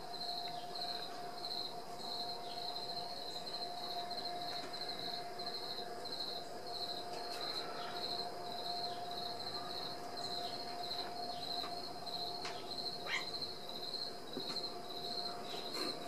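Insects chirping steadily, a high-pitched chirp repeated about three times a second, with a steady lower hum beneath it and a few faint taps.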